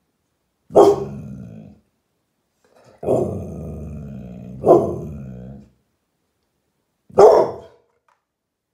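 American Staffordshire Terrier giving alert barks and growls at something outside: three sharp barks, about a second in, near the middle and near the end, each trailing off into a low growl, with a longer growl leading up to the second bark.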